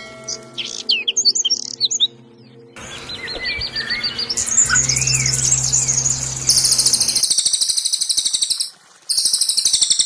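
Recorded songs of small songbirds: quick high chirps and whistled trills, then from about six and a half seconds in a very fast, high-pitched rattling trill that breaks off briefly near the end and starts again. A faint steady low hum lies underneath.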